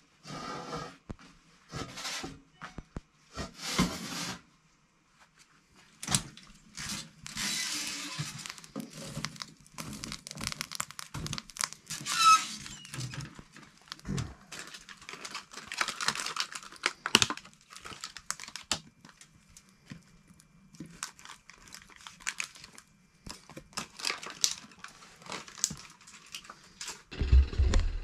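Close handling noises: irregular rustling, tearing and crinkling, with sharp clicks and light knocks, as food is handled by hand over an enamel plate.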